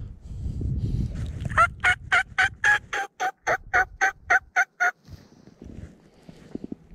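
Worn-out mouth diaphragm turkey call blown in a run of about a dozen short, raspy yelping notes, about four a second, starting about a second and a half in. The reed is shot and sounds terrible. Wind rumbles on the microphone before the calling.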